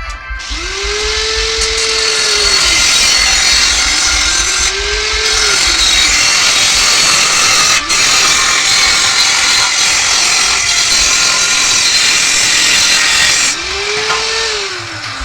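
Electric power tool working, with a loud hissing cutting noise from about half a second in until shortly before the end. Its motor pitch rises and falls three times.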